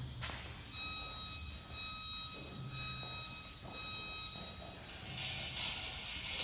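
Electronic gym timer beeping four times, about a second apart, each beep a steady high tone: the countdown that starts the timed workout. A burst of noise follows near the end.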